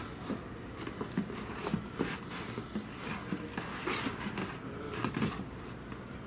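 Handling noise as a cardboard cutout is propped upright on an office desk: scattered light knocks and rustles of cardboard against the desk and monitor.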